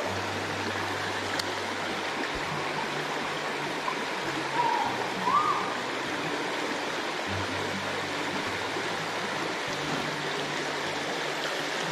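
Shallow mountain stream running over a rocky bed, a steady rushing wash of water. Two brief chirps stand out about halfway through.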